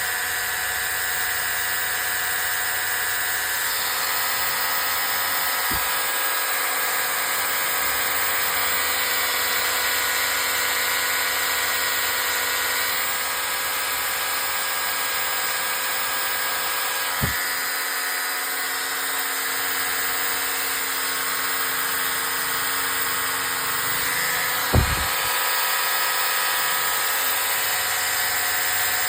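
Makita 800 W hammer drill's electric motor running steadily at a constant speed, with three brief knocks, the loudest one late on.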